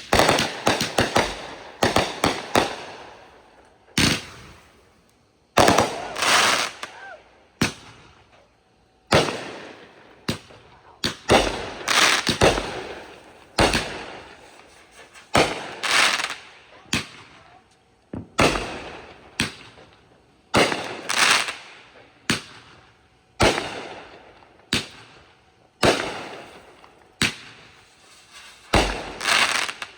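A fireworks finale: a steady barrage of aerial shells bursting, with sharp bangs coming singly and in quick clusters every second or two, each bang trailing off over about a second.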